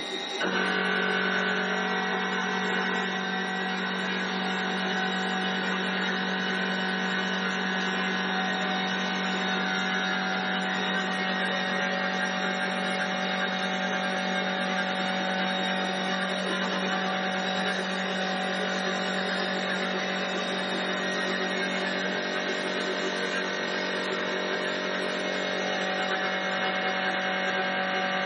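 4-axis CNC wood lathe running while its cutters shape a turning wooden spindle: a steady machine hum with several held tones over a haze of cutting noise. The tones shift slightly about ten seconds in.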